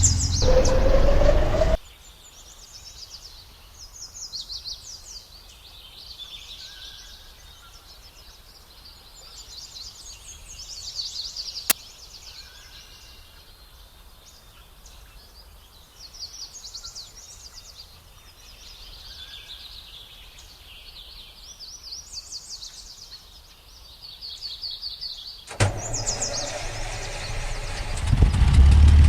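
Birds chirping and trilling in short repeated high calls over quiet outdoor background. A loud rumbling, motor-like noise stops about two seconds in and comes back near the end, growing louder.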